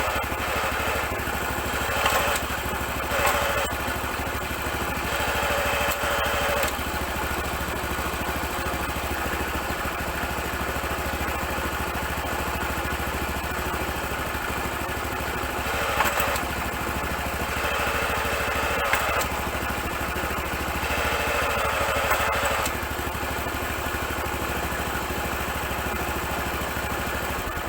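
Honda Super Cub 90's single-cylinder four-stroke engine running steadily. Several times there is a sharp click followed by a second or two of louder mechanical noise. This is the abnormal noise that comes with gear changes, which the owner suspects is a fault in the gearbox.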